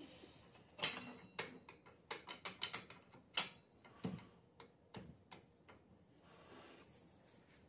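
Irregular sharp clicks and a few duller knocks of hand tools working on a small dirt bike's rear wheel hub and axle, in quick runs during the first few seconds, then thinning out.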